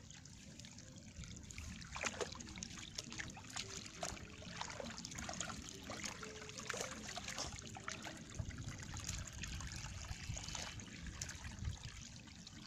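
Hands sweeping and scooping through shallow muddy water against a mesh net, fishing by hand: a run of small splashes over a steady trickling.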